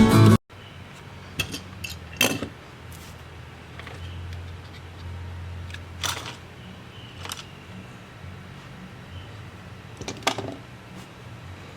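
Acoustic guitar music cuts off abruptly about half a second in. After that comes a low steady hum with scattered light clicks and taps, several times over the next ten seconds, the loudest about two, six and ten seconds in.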